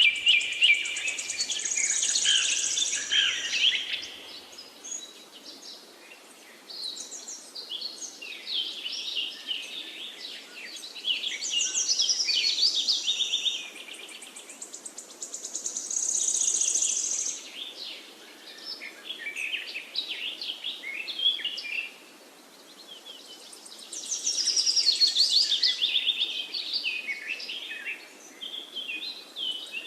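Songbirds singing in bursts of rapid chirping phrases a few seconds long, one after another with short pauses, over a faint steady background hiss.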